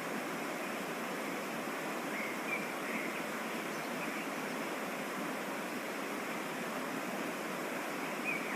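Waterfall water running steadily, an even, unbroken noise, with a few brief faint higher-pitched blips about two, three and eight seconds in.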